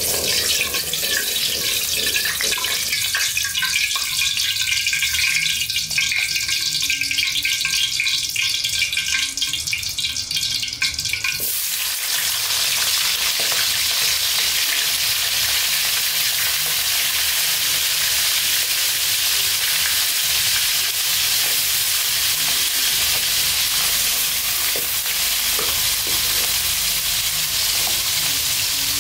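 Oil heating in a large iron wok over a wood fire, crackling and hissing. About eleven seconds in, small fish go into the hot oil and it breaks into a dense, steady sizzle of deep-frying.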